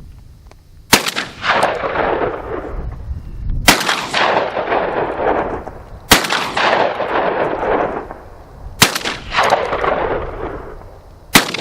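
Five shots from a Remington 1100 semi-automatic shotgun, fired about two and a half seconds apart, each followed by a long rolling echo. The loads run from buckshot and slugs to light-recoil buckshot and light bird shot, and the action cycles on every round.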